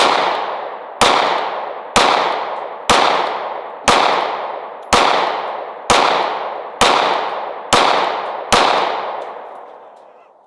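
Glock 19 9mm pistol fired ten times at a steady pace of about one shot a second, each shot followed by a long fading echo. The pistol cycles every round without a malfunction after being buried in a Ziploc bag for 100 days.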